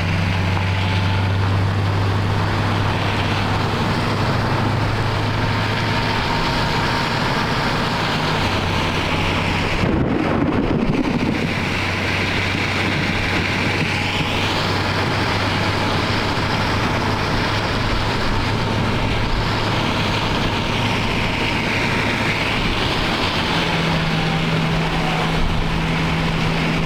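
Steady hum of a vehicle under a dense, even wash of rain and wind noise, a brief change in the sound about ten seconds in.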